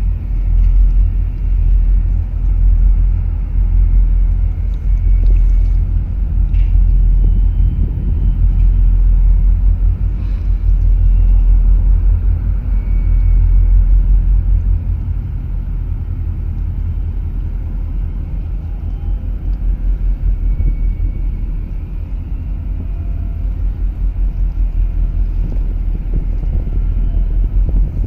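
Heavy low rumble of wind buffeting the microphone over open harbour water, swelling and easing in gusts and settling a little lower after about the middle.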